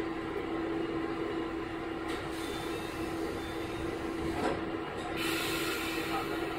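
KiHa 11 diesel railcar with a Cummins engine running along the line, with a steady hum and wheel-on-rail noise. A click comes about four and a half seconds in, and a burst of hiss lasting about a second follows shortly after.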